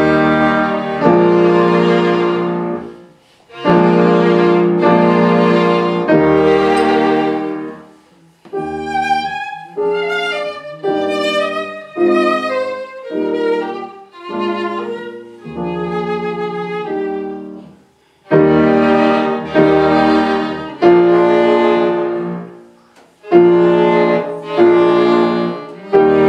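Violin playing classical music with piano accompaniment. Loud, full phrases with short breaks open and close the passage, and a softer stretch of wavering, high violin notes comes in the middle.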